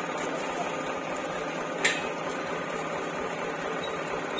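Pallet stacker's electric lift motor running with a steady hum, with one sharp click about two seconds in.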